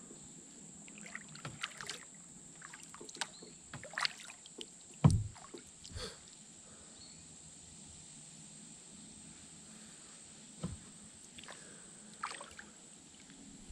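Kayak paddling: the paddle blades dip into calm, shallow water and drip in irregular strokes. There is a loud dull thump about five seconds in and a smaller one near eleven seconds.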